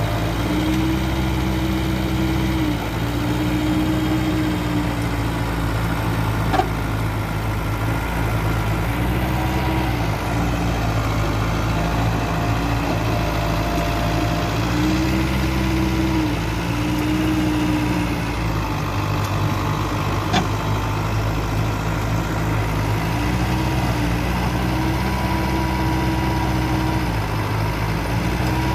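Diesel engine of a Mitsubishi BD2e bulldozer running steadily, its note rising and settling back several times as the machine works, with two short sharp knocks.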